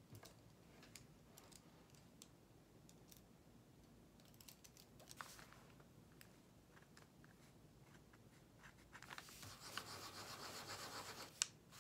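A pen drawing on paper with faint scratches, then scribbled rapidly back and forth for about two seconds near the end, as when testing a pen that won't write on a scrap surface, followed by one sharp click.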